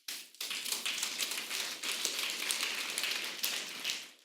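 Congregation applauding, many hands clapping quickly and steadily, fading near the end.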